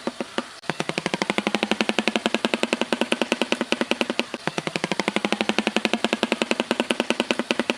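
Shoebill clattering its bill: a few separate clacks, then less than a second in a rapid, even rattle of about ten clacks a second that runs on steadily.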